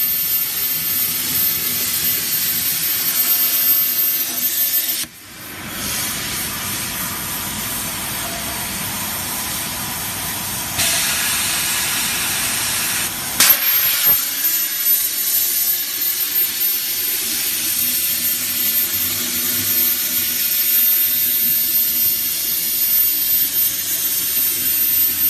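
Plasma torch of a CNC pipe-cutting machine cutting steel pipe, a loud steady hiss. The hiss drops briefly about five seconds in, and there is a sharp click about halfway through.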